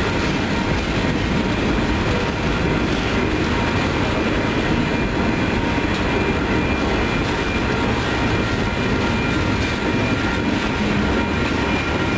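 Freight train of container cars rolling past on street-level track, a steady rumble and rattle of wheels and cars with faint clickety-clack.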